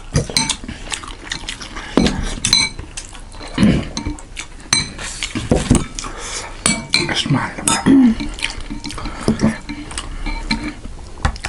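Repeated clinks of a metal spoon against a bowl, with wet slurping and chewing of thukpa noodle soup and momos.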